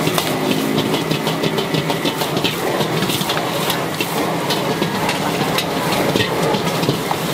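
Prawns and squid stir-frying in a steel wok over a high-flame wok burner: a steady burner roar and sizzle, with the metal ladle repeatedly scraping and clinking against the wok.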